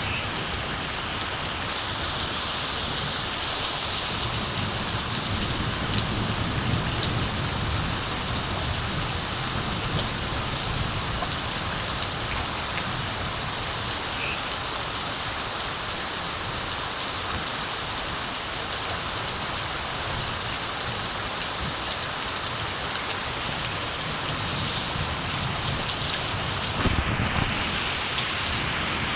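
Steady rain falling, a dense even patter, with low rumbles of distant thunder swelling a few seconds in and again near the end.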